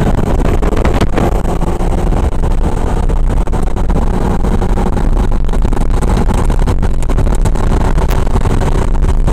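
Steady low engine and exhaust drone of a straight-piped Ford 6.0 Powerstroke diesel pickup cruising, heard from inside the cab with road noise.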